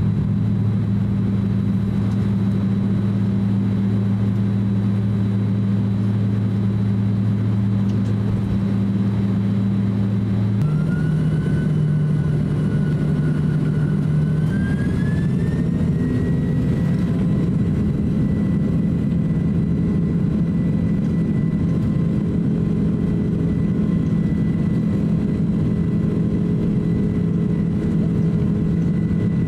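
Engine and cabin noise inside a Boeing 767-300 airliner as it taxis for takeoff: a steady low hum. About a third of the way in, the hum changes and a whine rises over a few seconds, then holds steady as the jet engines spool up.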